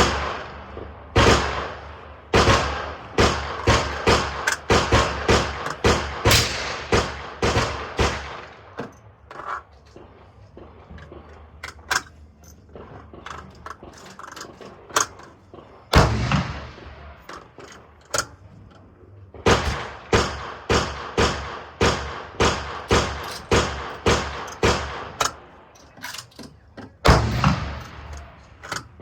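Strings of shots from a semi-automatic AR-10 rifle in .308 Winchester, fired in quick succession at about two a second, each a sharp crack with a short echo. In the middle there is a stretch of only fainter, scattered shots.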